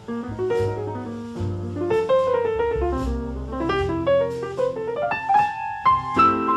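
Background music: a piano playing a melody of quick, changing notes over low bass notes, with faint regular ticks like a light cymbal beat, in a jazzy style.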